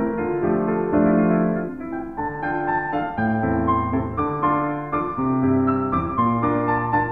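Background piano music: chords and melody notes, with low bass notes coming in about three seconds in.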